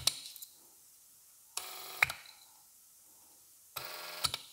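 Electric wastegate actuator from a BMW N63 engine, its DC motor powered directly from 12.6 V on the bench. It whirs in two short runs of about half a second each, and each run ends in a click. The motor runs cleanly, which the owner takes to mean the fault lies in the internal position sensors rather than the electric motor.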